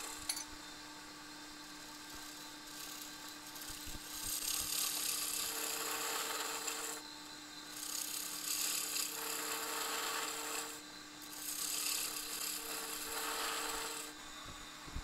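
Wood lathe spinning a wooden tool handle with a steady hum, while a hand-held turning tool cuts the spinning wood in three long passes of scratchy hiss, each a few seconds long.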